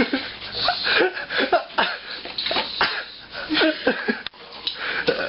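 Voices in a small room: a person coughing and gagging at something fiery-hot he has eaten, with laughter around him, in a run of short bursts.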